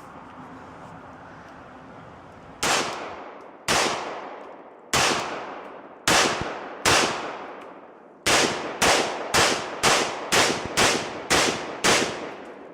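AR-15 pistol firing .223 steel-case rounds through a muzzle brake: thirteen shots, the first five about a second apart, then eight quicker ones about half a second apart, each a sharp crack with an echoing tail.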